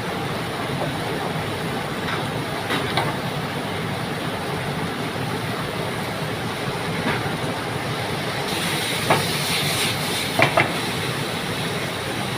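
Seafood and holy basil stir-frying in a pan with a steady sizzle. A metal spatula clacks against the pan a few times, sharpest near the end, and the hiss grows louder for a moment shortly before the last clacks.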